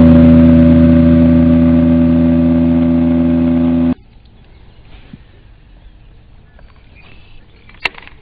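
Boat's outboard motor running steadily at speed while under way, loud, then cutting off suddenly about four seconds in; faint quiet outdoor sounds with a few small clicks follow.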